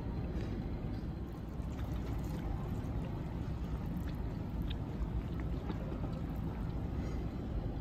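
Steady low rumble of restaurant background noise, with a few faint clinks of tableware.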